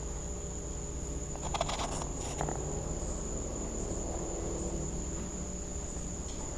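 Insects singing in one unbroken high-pitched drone, with a brief rustle about one and a half to two and a half seconds in.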